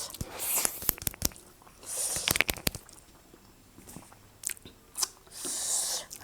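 Close-miked eating of spicy Korean instant noodles: chewing and biting with sharp wet mouth clicks, and short hissing slurps about two seconds in and again near the end.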